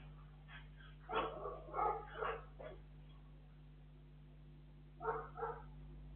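Dog barking: three short barks about a second in, then two more about five seconds in, over a steady low hum, heard through a security camera's microphone.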